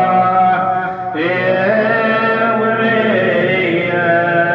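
A man's voice singing long, drawn-out melismatic notes of an Iraqi abudhiya lament, with no words in this stretch. The voice breaks briefly about a second in, then moves onto a new held note that bends slowly in pitch.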